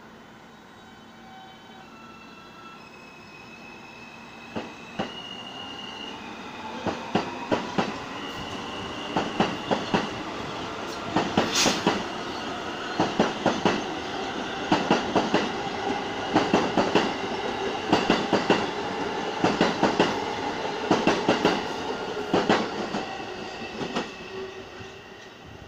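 New York City subway train pulling out of the station: a whine from its electric drive rises in steps as it starts moving, then the wheels clack over rail joints in repeated clusters. The sound grows louder as the cars pass and fades near the end.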